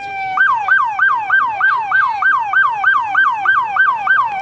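Police car siren: a slow falling wail that switches a little way in to a fast yelp of rapid up-and-down sweeps, about three a second, then turns back into a rising wail at the very end.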